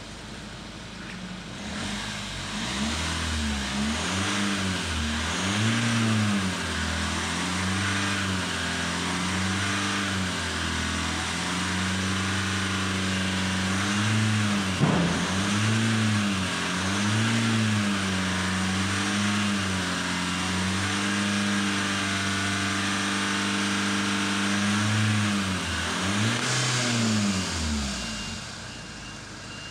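2011 Kia Grand Carnival turbo diesel engine revved in park: a series of quick blips that rise and fall, held steady at a raised speed for several seconds, then more blips before it drops back toward idle near the end.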